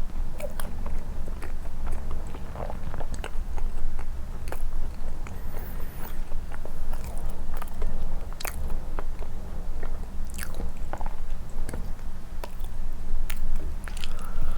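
Close-up chewing and biting of soft condensed-milk cream bread dipped in milk, with wet mouth clicks and smacks scattered throughout. A steady low rumble runs underneath.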